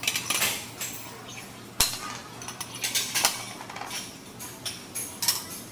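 Metal weight plates and barbells clinking and clanking in a weight room: a string of short metallic clinks, with one sharp clank a little under two seconds in.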